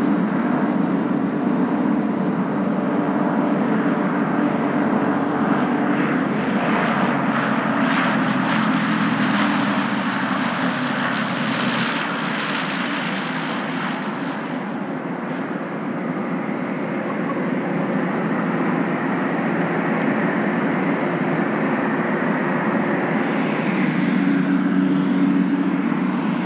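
Cirrus SR22's six-cylinder piston engine and propeller droning steadily on landing approach, growing louder and brighter as it comes close, then softening as it flares over the runway. Near the end a Piper PA-28-181's four-cylinder engine takes over, running on the runway.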